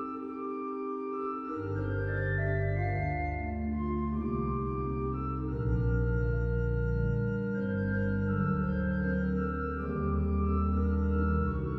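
Church organ playing slow, held chords over a deep bass line; the bass notes come in about a second and a half in.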